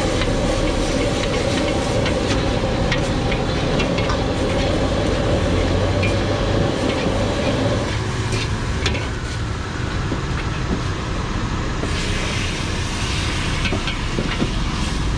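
Noodles stir-fried in a wok over a high-flame gas burner: the burner roars, the food sizzles, and the metal ladle scrapes and clanks against the wok. About eight seconds in the low roar drops away.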